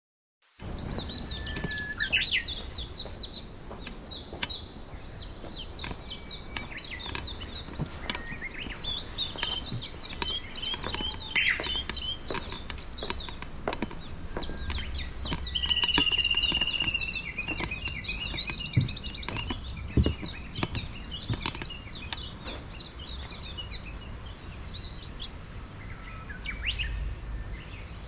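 Several songbirds singing in quick runs of chirps and trills, one with a short held whistle partway through, over a low rumble of wind on the microphone.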